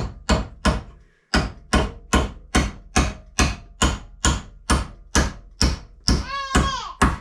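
Hammer striking wooden framing in a steady run of sharp blows, about two and a half a second, with a short pause about a second in.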